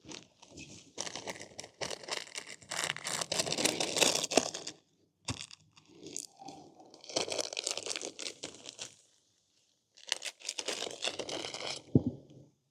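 Tire levers prying and scraping at a rubber scooter tire's bead on the wheel rim, in three bursts of scraping and clicking with a sharp knock near the end.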